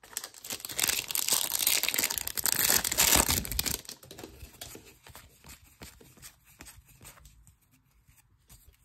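Plastic foil wrapper of a baseball card pack torn open and crumpled, a loud crinkling tear lasting about four seconds, followed by softer rustling and light clicks as the cards are handled.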